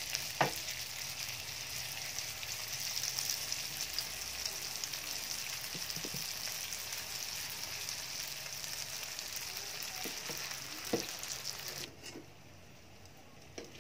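Lumpia shanghai spring rolls sizzling as they deep-fry in hot oil, with a few light knocks as more rolls go in. The sizzle cuts off suddenly near the end.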